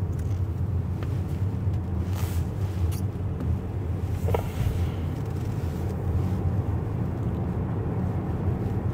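Car driving along a city street, heard from inside the cabin: a steady low engine and road rumble, with a few faint knocks.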